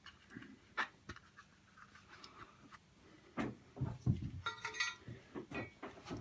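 Small clicks and knocks of tools and parts being handled on a workbench, busier in the second half, with a brief high squeak or clink among them.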